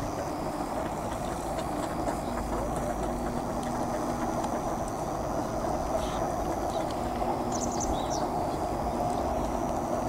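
Steady outdoor background noise, with a few short high-pitched chirps about seven and a half seconds in.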